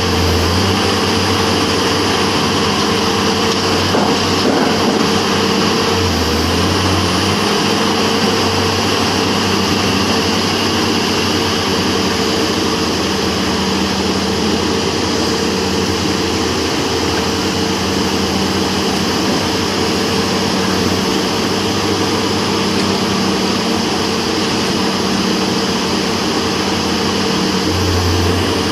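Sunward SWDM28 rotary drilling rig running: a steady diesel engine drone with a constant tone over it, deepening briefly about six seconds in and again near the end.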